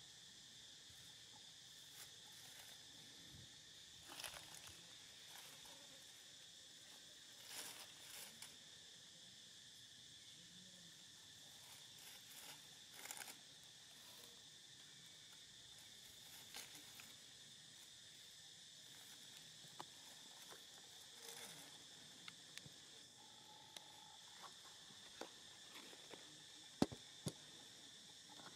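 Faint, steady high insect drone from the surrounding forest, with a few short rustles and clicks scattered through it; the sharpest click comes near the end.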